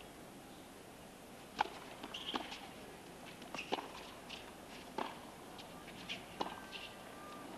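Tennis ball struck by rackets on a hard court: a serve about a second and a half in, then a rally of sharp racket hits and ball bounces about a second apart.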